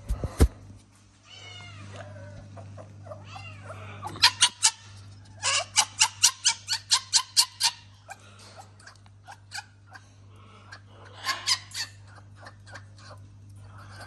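A couple of thumps, then high-pitched chirps and a run of rapid squeaks, about five a second, with a shorter burst near the end: a fennec fox's irritated chattering.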